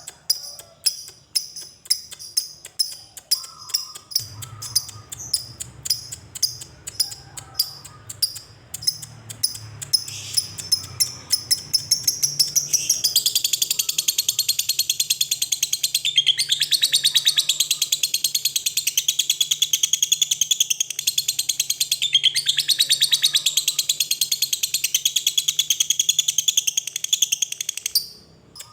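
Lovebird calling: separate sharp chirps, two to three a second, that speed up and run into a long, unbroken rapid trill (the 'ngekek' chatter), which cuts off suddenly near the end.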